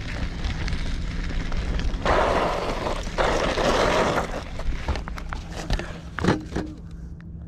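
A child's bike rolling over a dirt track, with wind buffeting the handlebar-mounted action-camera microphone in two loud gusts. Scuffs and knocks follow, with a sharp knock about six seconds in as the rider comes down onto the dirt.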